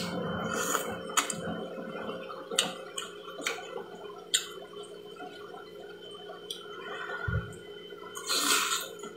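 A person eating lomi noodle soup: wet chewing and scattered mouth smacks, then a longer slurp of thick egg noodles near the end. A dull low thump comes just before the slurp.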